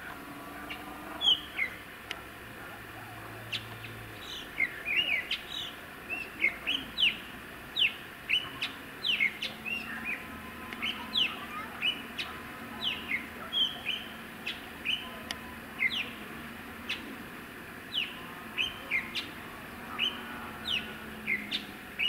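A small songbird giving short, sharp chirps that slide downward in pitch, repeated irregularly about once or twice a second.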